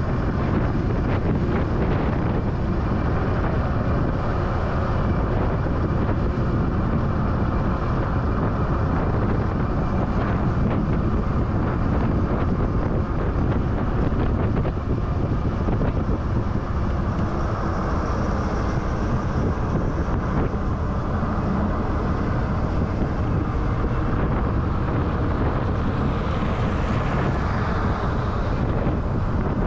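Steady wind rush on the microphone of a camera moving along with a group of e-bikes, with no breaks.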